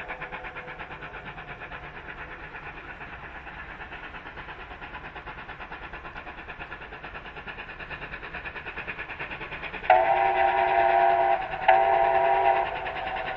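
NSWGR 38 class steam locomotive chuffing with a steady, fast exhaust beat as it approaches. Near the end it sounds its five-chime whistle twice, a longer blast and then a shorter one.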